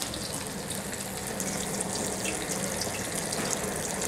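Beef intestines (gopchang and makchang) sizzling on a large tabletop griddle pan: a steady hiss with faint scattered crackles, over a low steady hum.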